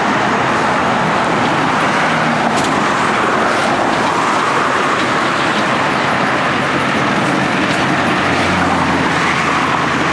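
Steady road traffic noise, an even rushing sound with no distinct events.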